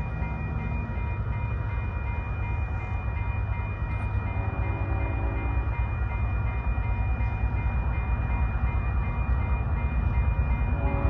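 Approaching train rumbling and growing steadily louder. A locomotive horn sounds briefly and faintly about four seconds in.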